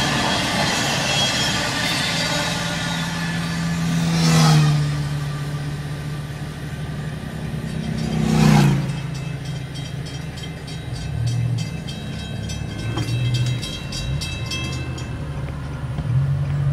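Railroad crossing warning bells ringing while the last cars of a freight train rumble through the crossing for the first few seconds. There are two louder passing swells, and the bells keep going with a steady repeating ring as the crossing gates go up. A car engine comes up near the end.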